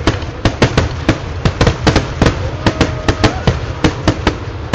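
Kerala temple-festival fireworks (vedikettu): a rapid, irregular barrage of loud firecracker bangs, several a second, without a break.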